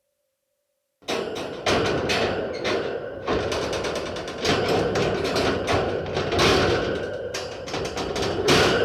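Metal dungeon cage door being worked, a dense run of clanking knocks and rattles over a steady grinding noise, starting suddenly about a second in.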